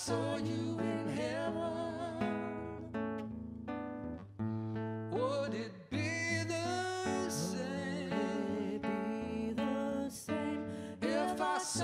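Live acoustic band music: an acoustic guitar played over a double bass's low notes, with a singing voice over the top.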